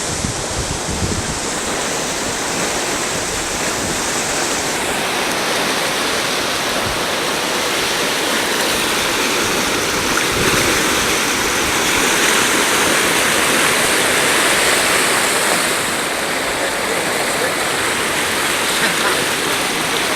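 Fast, flooded river water rushing in a steady, loud hiss, with some wind buffeting the microphone near the start.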